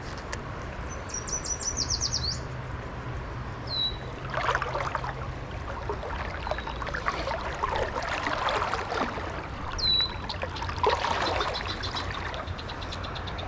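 Songbirds calling over a stream: a high, rapid trill early on, two short falling whistles, and a faint run of quick notes near the end. Between them come several louder rushes of noise from water or movement.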